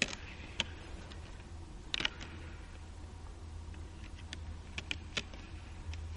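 Fallow deer bucks' antlers clacking and knocking together as they spar, in irregular sharp clicks. The loudest come right at the start and about two seconds in.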